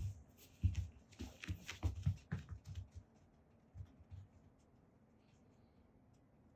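Soft thumps and rustling from two house cats being handled and tussling, several a second for about three seconds, then only a few faint ticks.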